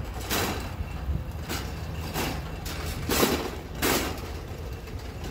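Metal shopping cart being pushed over concrete pavement: the wheels keep up a steady low rumble, with short rattling scrapes roughly every two-thirds of a second.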